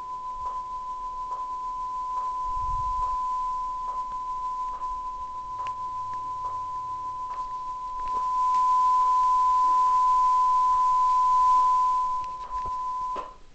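A steady electronic beep tone from a demo VHS tape's white end screen, playing through a television, with a soft click a little more than once a second. A hiss grows louder about two-thirds of the way through, and the tone cuts off near the end.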